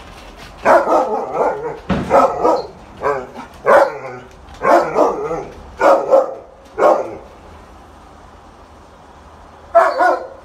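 A dog barking: a run of loud barks over about six seconds, a pause, then more barks near the end.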